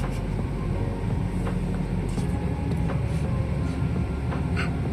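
Car driving along a city road, heard from inside the cabin: a steady low rumble of engine and road noise, with a few faint ticks.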